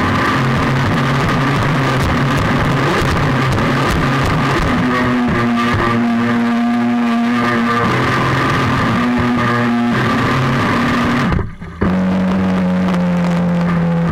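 Background music of long held notes, probably a distorted electric guitar, that step from one pitch to another, with a brief break about eleven and a half seconds in.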